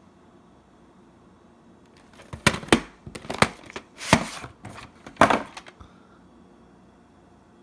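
A VHS cassette being slid out of its cardboard sleeve and handled: a run of sharp plastic clicks and short scrapes, about five loud ones, starting about two seconds in and stopping about two seconds before the end.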